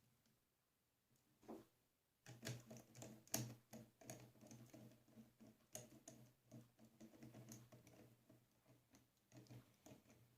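Faint, scattered small clicks and taps of hex nuts and bolts being handled and worked into their slots on a pneumatic narrow crown stapler, a few a little louder than the rest.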